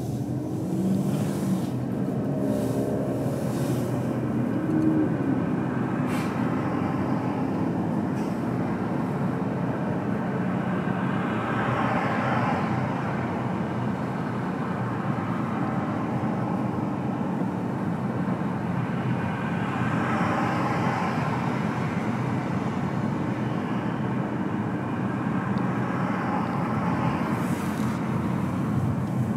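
Car on the move, with steady road and engine noise that swells louder a few times.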